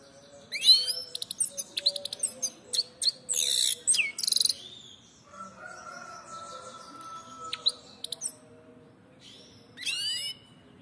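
Goldfinch singing: bursts of quick twittering and sweeping notes for the first few seconds, a pause, then a few notes and one last short phrase near the end.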